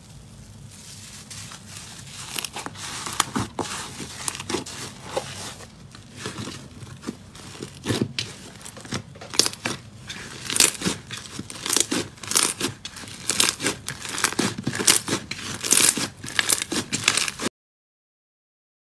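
Hand-worked slime being stretched, pressed and squeezed: a fast, irregular run of crackles and pops that grows louder and denser, then cuts off abruptly near the end.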